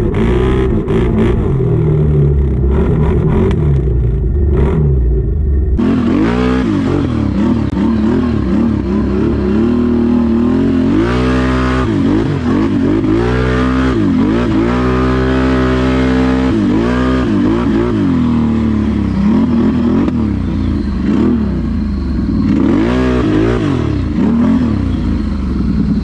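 ATV engine running hard through tall wet grass and mud, with spatters of debris hitting for the first few seconds. About six seconds in, the sound changes abruptly, and from there on the engine revs up and down again and again as the throttle is worked.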